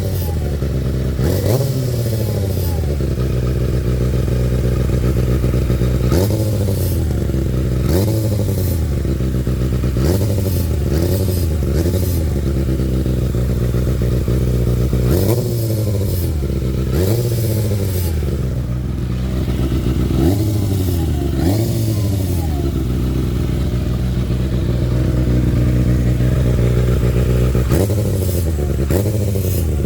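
Kawasaki ZX-6R inline-four engine blipped again and again, the revs rising and falling every second or two, with a grinding, clattery noise that comes when the throttle is turned. The cause of the grinding is unknown.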